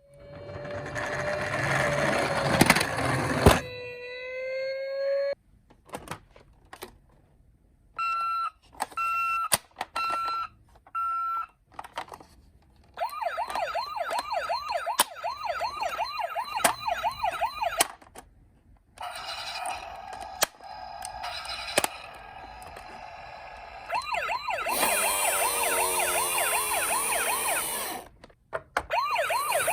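A string of emergency-vehicle sirens, one after another with short gaps: a noisy burst with a held tone at the start, four short even beeps about eight seconds in, a fast wavering wail from about thirteen seconds, and a louder wavering siren with hiss near the end.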